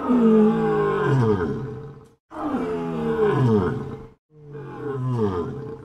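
Lion roaring: three long roars in a row, each sliding down in pitch. The first is the longest and loudest.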